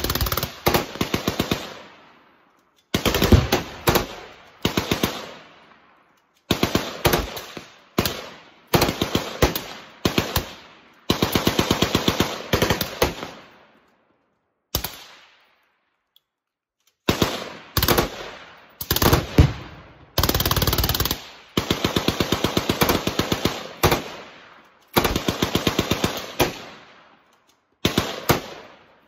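Fully automatic machine-gun fire in repeated bursts, about a dozen of them, some short and some running two seconds or more, with brief pauses between.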